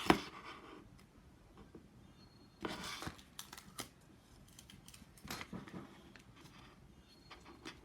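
Paper being worked by hand for a craft: a sharp click at the start, then short bursts of paper rustling about three and five and a half seconds in, with light handling ticks between.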